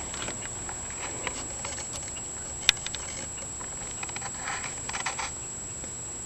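Light, irregular ticking and pattering, with one sharper click about two and a half seconds in and a small cluster of ticks near the end, over a steady faint high-pitched whine.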